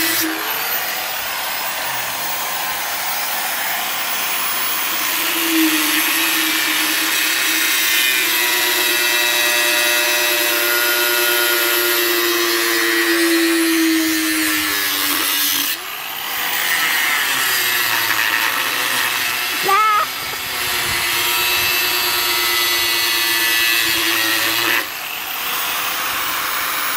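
Angle grinder cutting through the steel casing of a fridge compressor. It runs continuously, its whine sagging and recovering in pitch as the disc bites, and it eases briefly around the middle and again near the end.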